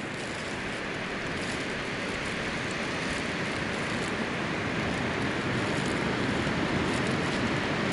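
Strong wind blowing over the microphone, a steady rushing roar with low buffeting rumble that slowly grows louder, with a few faint clicks.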